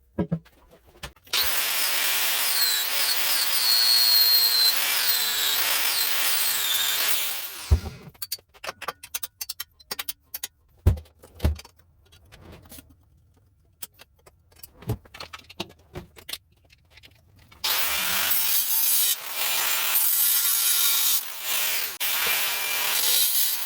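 Workshop tool work: two long stretches of a power tool scouring or abrading, with a faint whine that rises and falls during the first. In between come scattered clicks and knocks.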